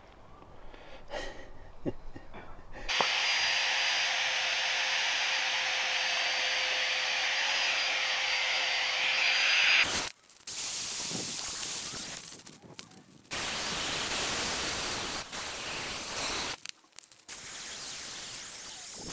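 Battery-powered Flextailgear Max Pump 2 Pro electric air pump inflating a sleeping mat: a steady rush of air with a steady motor whine. It starts about three seconds in and cuts off suddenly about ten seconds in, then runs again in shorter stretches with breaks between them.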